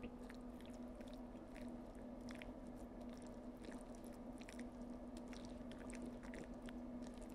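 Faint wet squelching and small irregular clicks of a plastic-gloved hand massaging cubed raw pork in a thick garlic-and-vinegar marinade paste in a bowl, over a steady low hum.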